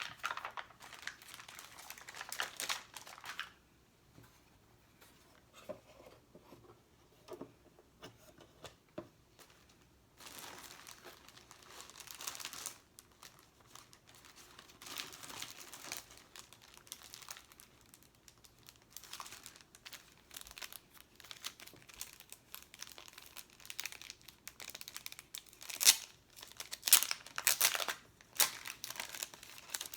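Stickers and their backing paper being handled close to the microphone: crinkling and peeling, in irregular bursts with short quiet pauses, loudest near the end.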